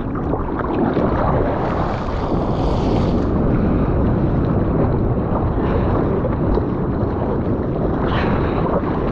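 Seawater sloshing and splashing right at the microphone around a bodyboard at water level, mixed with wind on the microphone, with louder splashes about two to three seconds in and again near eight seconds.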